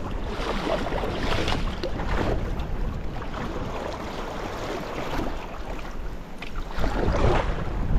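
Sea kayak being paddled on choppy water: paddle blades splash at irregular intervals over the noise of waves and water against the hull. Wind buffets the microphone throughout.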